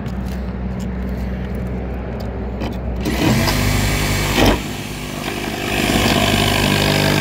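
A power tool cutting sheet metal for a roof jack, starting about three seconds in with a harsh, high grinding screech over its running motor. It dips briefly and picks up again. Before it there is a low steady hum.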